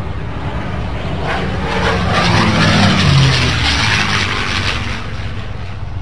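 Propeller airplane engine flying past: the sound swells to a peak about halfway through, its pitch drops as it passes, then it fades.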